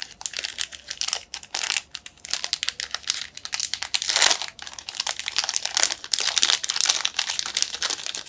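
Plastic wrapping crinkling and crackling in irregular bursts as an acrylic figurine is unwrapped and handled, with a louder crackle about four seconds in.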